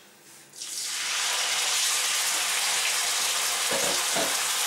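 Marinated pork belly cubes hitting hot oil in a frying pan and sizzling, the hiss starting about half a second in and then holding steady.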